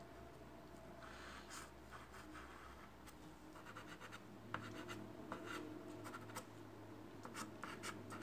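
Faint scratching of a soft pastel stick on rough drawing paper, in short, irregular strokes that come faster in the second half, as darker details are laid in.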